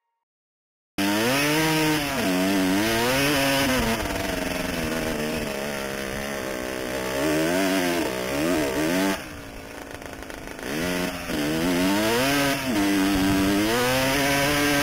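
Enduro dirt bike engine, heard from on the bike, cutting in suddenly about a second in and revving up and down repeatedly as the throttle is worked. Around ten seconds in it drops to a quieter low idle for a moment, then revs up again.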